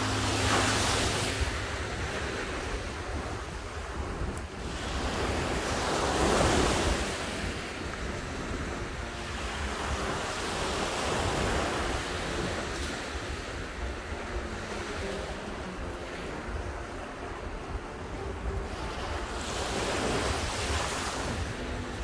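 East Sea waves breaking and washing up on the beach, swelling and falling back several times, with wind rumbling on the microphone.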